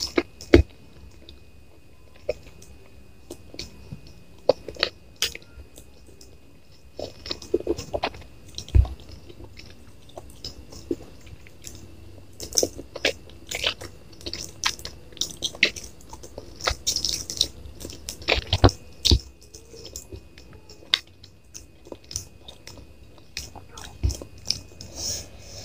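Close-up eating: a person chewing and biting, with many short irregular crunches, likely fried chicken, and wet mouth sounds.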